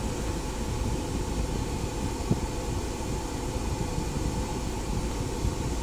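Steady cabin noise inside a Chevrolet Captiva: the air conditioning blowing, though it has not yet cooled the car, over a low engine and road hum. A single light click about two seconds in.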